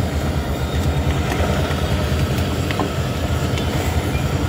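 Steady low rumble of outdoor street background noise, with a few faint clicks.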